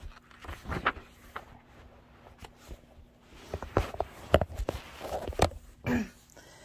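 A paperback book's page being turned and the book and phone handled: a run of scattered soft rustles and knocks.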